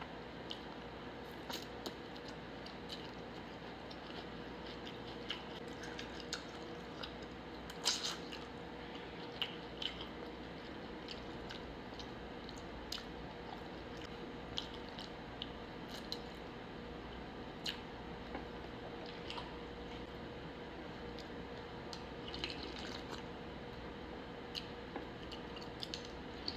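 Close-up eating of a bowl of pho: soft chewing and wet, squishy mouth sounds, with scattered sharp little clicks, over a steady faint hum.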